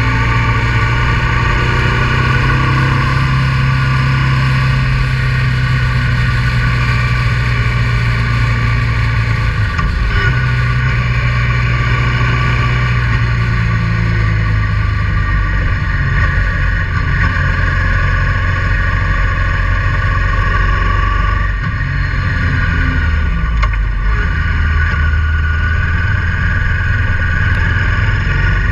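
Honda Transalp 650's V-twin engine running steadily while the motorcycle is ridden along the road. Its pitch drops and picks up again a few times with changes of speed, over a constant rush of road and wind noise.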